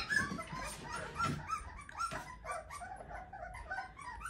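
A litter of young puppies whimpering and squeaking: many short, high-pitched calls overlapping.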